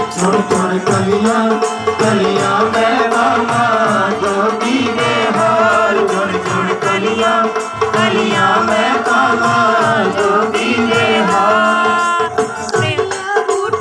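Harmonium playing a melody over a sustained drone, with hand drums keeping a steady beat: Punjabi devotional music.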